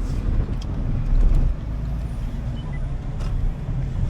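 Road noise inside a moving car: a steady low rumble of engine and tyres, with a couple of faint clicks.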